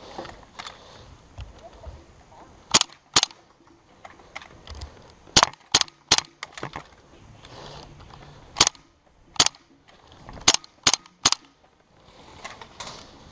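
Gas blowback MP7 airsoft submachine gun firing single shots, sharp cracks in short groups of two or three, about ten in all.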